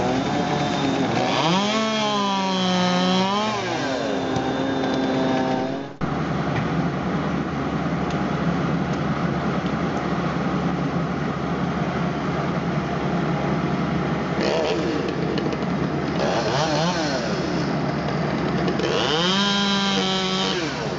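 Gas chainsaw running, revving up and down in surges near the start and again near the end, with steadier running between.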